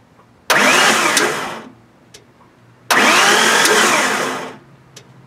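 Starter cranking a Ford 4.9-litre inline six with its timing cover off, turning it over on newly fitted timing gears. It cranks in two loud bursts, the first of about a second and the second of about a second and a half, with a whine that rises and then falls in each.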